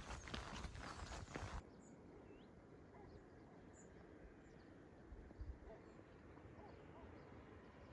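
Hiking footsteps for about a second and a half, then an abrupt cut to a quiet spell with a few faint, short bird chirps.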